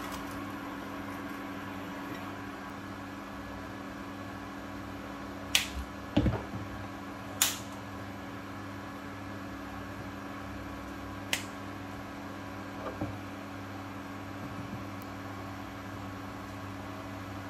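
Steady electrical hum of an induction hob running under a stainless steel pot. Several sharp clicks and one low knock come mostly in the middle, as spice bottles and jars are handled and set down.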